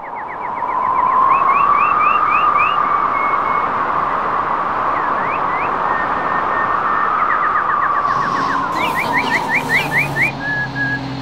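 Rapid runs of short rising bird chirps and a few held whistled notes over a steady rushing hiss that swells and fades. Low bass tones of music come in near the end.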